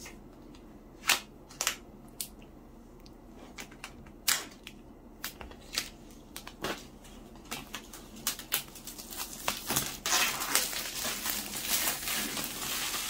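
Hands handling a shrink-wrapped iPad Pro box: a scatter of sharp taps and clicks, then a denser crackle. From about ten seconds in, the plastic wrapping crinkles steadily as the box is picked up.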